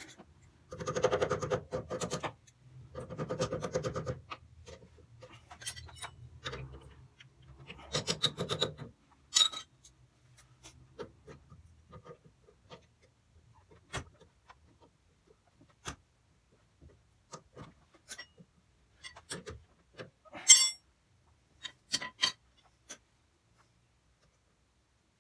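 Metal parts and hand tools being worked at a van's front suspension: three stretches of scraping and rubbing in the first nine seconds, then scattered metallic clicks and clinks, the loudest a sharp clink about twenty seconds in.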